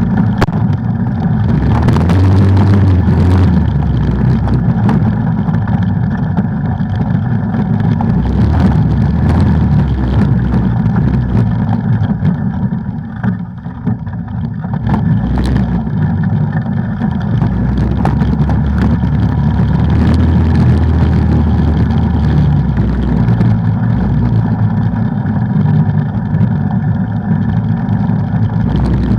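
ATV engine running under load on a trail, easing off briefly about halfway through, with scattered knocks.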